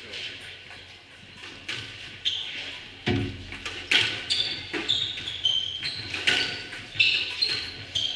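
Squash rally on a wooden court: the ball cracks off rackets and walls about once a second from about three seconds in, with short high shoe squeaks on the floor between shots.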